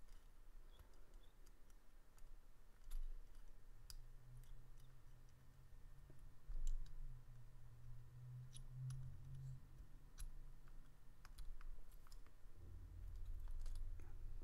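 Faint, scattered small metallic clicks and ticks from a precision screwdriver bit and a tiny T8 Torx pocket-clip screw against aluminum knife scales and the clip, as the screw is fiddled into place.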